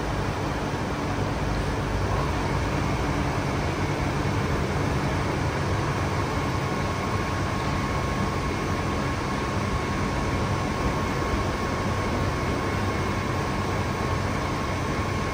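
Steady mechanical rumble and hum of vehicle and rail machinery, with a faint high steady whine that comes in about six seconds in.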